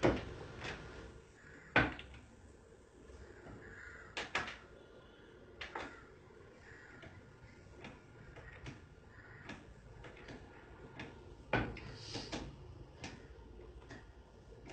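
Irregular sharp wooden knocks and clicks from a handmade wooden slatted reclining chair as the sitter shifts his weight in it. The loudest come at the start and about two seconds in, with a few more close together later.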